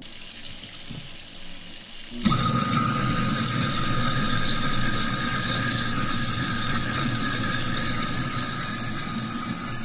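Water running, then about two seconds in a motor starts with a steady high whine over the rushing water and a low rumble.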